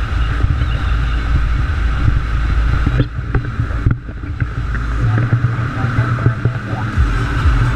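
Speedboat running fast across open water: engine and hull noise under heavy wind buffeting on the boat-mounted microphone, with a brief lull about three to four seconds in.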